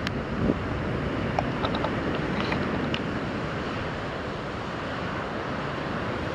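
Wind buffeting the microphone over the sound of harbour water washing, a steady noisy rumble.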